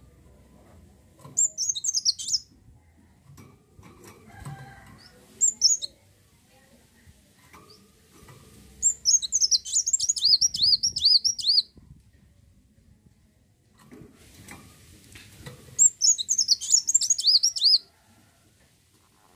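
Kolibri wulung sunbird singing: four bursts of rapid, high-pitched twittering made of quick swooping notes. The longest burst, about three seconds, comes near the middle.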